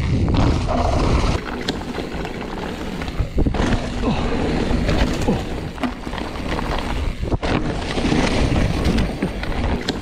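Mountain bike riding down a dirt singletrack: wind buffeting the bike-mounted camera's microphone and tyres rolling over the trail, with sharp knocks and rattles of the bike over bumps several times.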